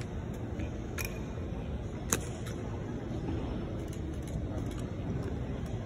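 Drill rifle handled in an exhibition drill routine: a few sharp slaps or clicks as it is caught, the loudest about two seconds in, over a steady low hum of the arena.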